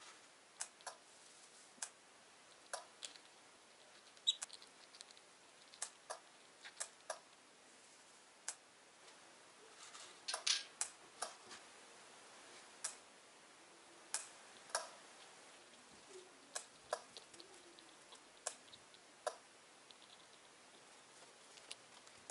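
Faint, irregular sharp clicks and ticks, a few dozen scattered with no steady rhythm and a denser cluster about halfway through, over a low hiss.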